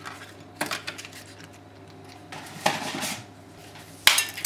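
Dry, uncooked lasagna sheets clicking and clattering as they are handled and laid into a ceramic baking dish: a few sharp clicks, a small cluster in the middle, and the loudest click near the end.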